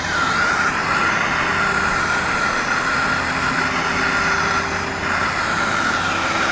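Hand-held gas torch burning at full flame, a steady loud hiss with a high whistle, its flame blown through a Yamaha YZ125's exhaust silencer to burn out the old packing.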